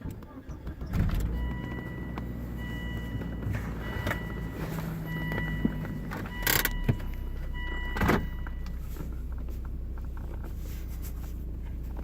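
Car engine starting about a second in and then idling with a steady low hum. Over it, a high-pitched tone sounds on and off for several seconds, one of the unwanted noises the owner gets with the amp adapter connected. A few sharp clicks come in the middle.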